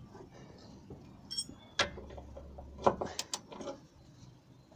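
Socket wrench being worked on a gearbox-mount bolt under a car: a few sharp metallic clicks and clanks, one about two seconds in and a quick cluster around three seconds in, the loudest of them there.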